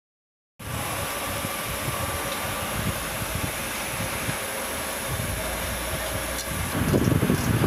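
Steady hiss and hum of workshop machinery, starting abruptly about half a second in, with louder uneven low rumbling near the end.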